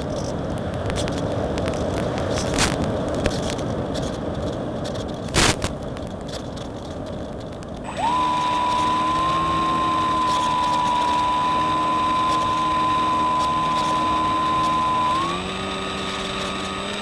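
Electric motor and propeller of a Reely Phönix RC motor glider heard from on board: first rushing noise with crackles while it glides with the motor off, then about eight seconds in the motor starts and runs with a steady whine, stepping up in pitch near the end as the throttle is opened further.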